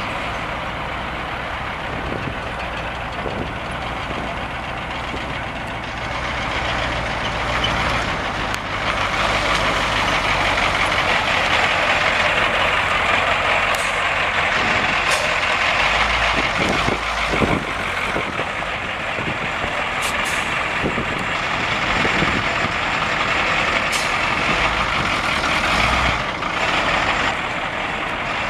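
Caterpillar 3208 V8 diesel engine of a 1979 Ford 8000 cab-and-chassis truck running as the truck is driven slowly around the lot, growing louder about eight seconds in.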